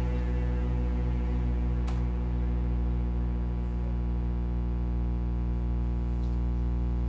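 Background music: a steady low drone of held tones with no melody or beat.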